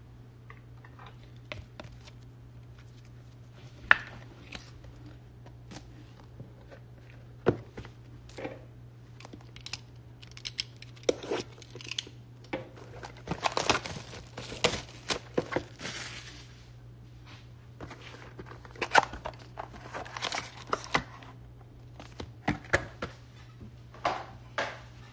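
Foil-wrapped Obsidian football card pack and its packaging being handled: crinkling and rustling with scattered taps and clicks, busiest around the middle.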